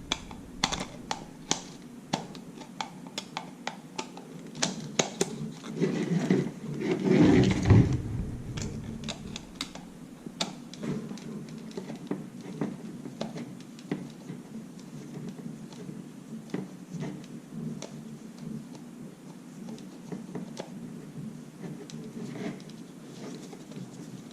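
Small clicks and taps from a screwdriver, screws and plastic hair-dryer parts being handled during disassembly, thickest in the first ten seconds and sparser after. A louder handling bump comes about seven seconds in.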